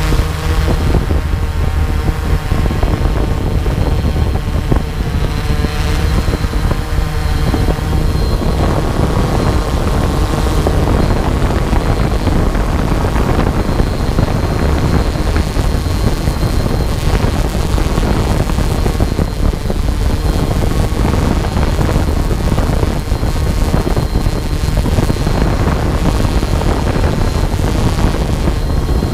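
Small camera drone's motors and propellers whirring steadily in flight, heard from its own onboard camera, with wind rumbling on the microphone.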